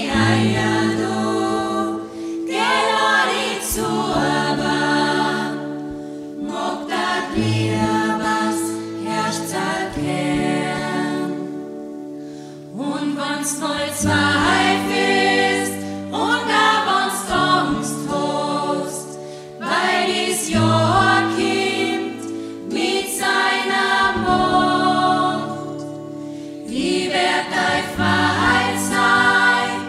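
A choir singing in several parts, with steady low held notes under the moving upper voices and short breaks between phrases.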